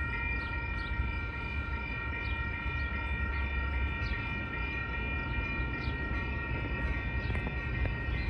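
Commuter train approaching the station: a low, even rumble, with a steady ringing tone sounding over it most of the way through.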